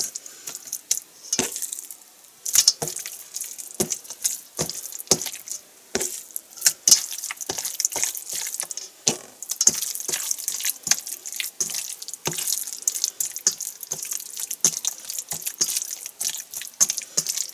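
Raw chicken breast pieces being handled and mixed by hand in a metal bowl of rice flour, giving a dense, irregular run of short wet clicks and slaps over a steady high hiss.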